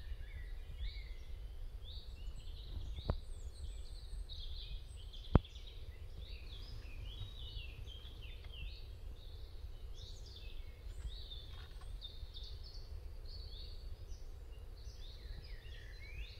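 Birds singing, many short high chirps overlapping throughout, over a low steady rumble. Two sharp clicks come about three and five seconds in, the second the loudest sound.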